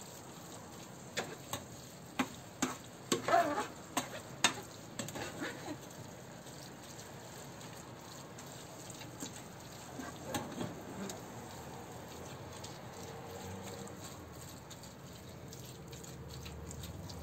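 Minced meat sizzling gently in a frying pan while a plastic spoon stirs it, with a run of clicks and scrapes against the pan in the first several seconds, then mostly the steady sizzle.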